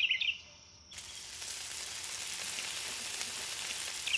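Steady sizzle of food frying in a pan on a camp stove, starting suddenly about a second in. A small bird sings a quick run of chirps at the start and again near the end, louder than the sizzle.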